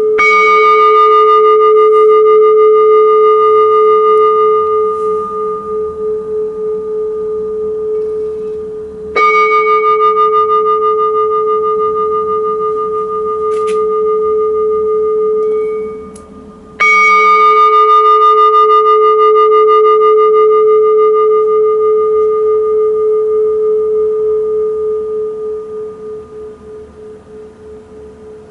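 Japanese rin (Buddhist bowl bell) struck three times with a padded striker, each strike ringing out with a low main tone and higher overtones that wobble slowly in loudness as they fade. The second ring dies away quickly just before the third strike, and the last ring fades off gradually.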